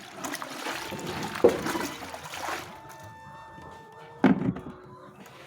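Liquid pouring and splashing into a container for about two and a half seconds, then stopping. A knock about a second and a half in and another louder one about four seconds in.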